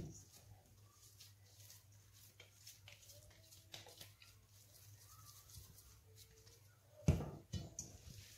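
Faint handling of soft dough in a stainless steel bowl: soft rustling and small clicks, with two dull knocks about seven seconds in. A few faint short whines sound over it.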